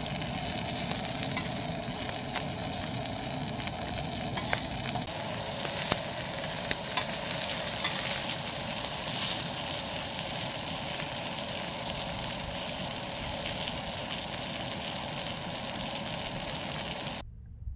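Fish fillets and whole shrimp sizzling steadily in hot oil on a black griddle plate, with a few sharp clicks of metal tongs against the plate. The sizzle cuts off suddenly shortly before the end.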